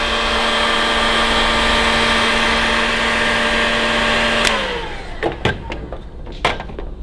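Handheld electric heat gun running with a steady fan whine and rush of hot air, shrinking heat-shrink tubing over a soldered wire joint. About four and a half seconds in it clicks off and the whine falls in pitch as the fan winds down, followed by a few light clicks and knocks.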